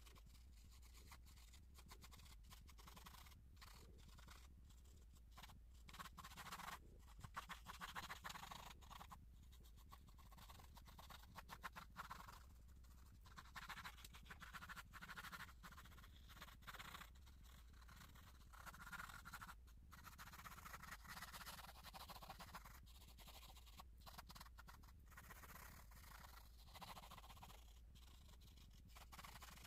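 Faint scratching of a pencil sketching on paper, in runs of quick strokes with short pauses between, over a steady low hum.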